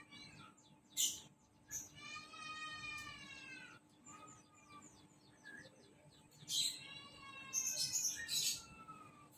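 A prinia calling: sharp high chirps and quick ticking trills, and two long nasal, arching calls, one about two seconds in and one about seven seconds in.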